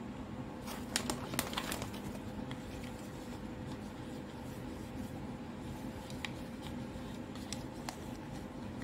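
Hollow plastic toy fruit pieces clicking and tapping against each other and the fingers as they are handled, a quick cluster of clicks in the first two seconds and a few scattered ones later, over a steady low hum.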